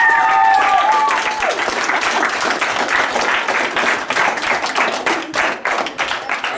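A roomful of children and teenagers applauding, with a few high-pitched cheers over the clapping in the first second or so. The applause eases off slightly toward the end.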